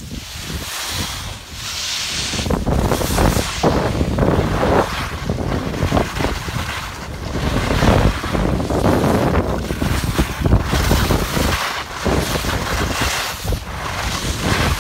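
Wind buffeting the microphone of a camera moving fast, a loud rough rush that swells and drops irregularly.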